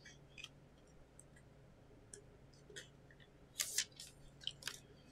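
Faint clicks and rustles of plastic card sleeves and holders being handled, with a couple of short, louder crinkles after about three and a half seconds.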